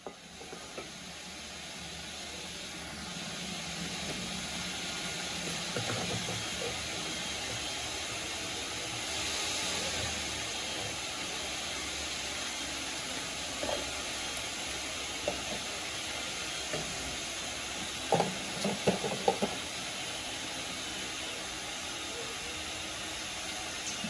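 A steady hiss that starts suddenly and holds evenly, with a few light clicks and knocks about three-quarters of the way through.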